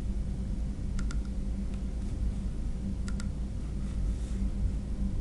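Two quick double clicks on a computer, about two seconds apart, over a steady low hum.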